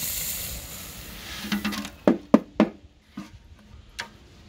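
Quicklime granules pouring from a galvanised bucket into a metal dustbin, a steady hiss that tails off over the first second or two. About two seconds in, a quick run of four or five sharp knocks, with a single tick near the end.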